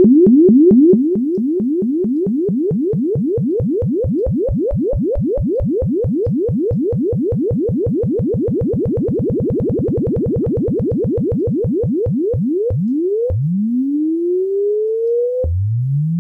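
Software synthesizer sine tone at about 294 Hz, its pitch swept by a sawtooth-shaped LFO. It makes repeated upward pitch glides that each snap back down, several a second and widening in range. Near the end they slow to long rises of about two seconds each.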